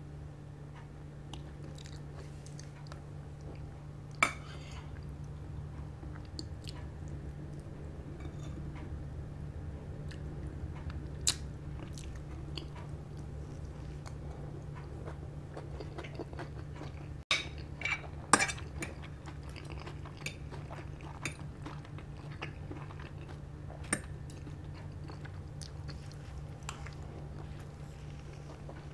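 Close-up chewing and biting of food. A few sharp clicks, the loudest about four seconds in and a cluster around eighteen seconds in, come from a metal fork and spoon knocking against the plates. A steady low hum runs underneath.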